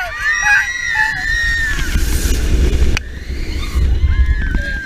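Riders screaming on a dive coaster's vertical drop: several long, high, held screams at the start and again near the end. Under them runs a heavy wind rumble on the microphone as the train plunges.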